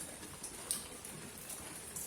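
Steady rain falling in a courtyard, with separate drops ticking through the hiss; one sharper drip lands a little after half a second in.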